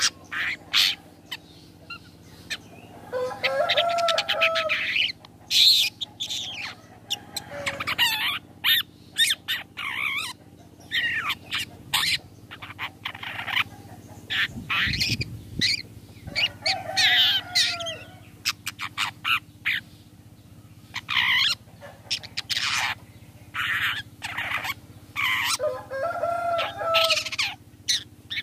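Long-tailed shrike (cendet) calling: a long run of short, sharp, harsh 'toet' notes, with a lower chattering phrase about 4 s in, again around 17 s and near the end. A lure call meant to provoke other cendet into answering.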